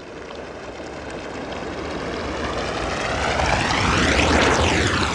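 Whoosh sound effect like a jet flying past, for an animated logo outro: a rushing noise builds for about four seconds to a peak with a sweeping tone, then begins to fade.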